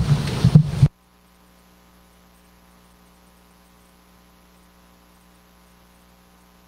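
Loud rumbling hiss that cuts off abruptly about a second in, leaving a faint, steady electrical mains hum with a row of evenly spaced overtones.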